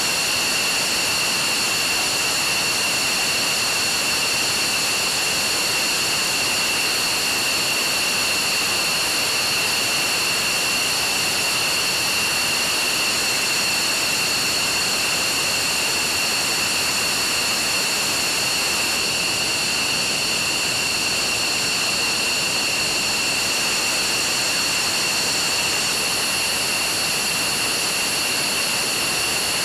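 F-15E Strike Eagle's twin Pratt & Whitney F100 turbofan engines idling on the ground: a loud, steady rush with a high turbine whine at several fixed pitches.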